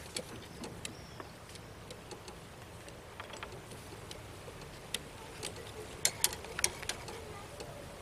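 Light, sharp clicks of metal keys knocking against a metal key rack as a cockatoo picks at them with its beak. There are a few scattered clicks, then a quick run of louder ones about six seconds in.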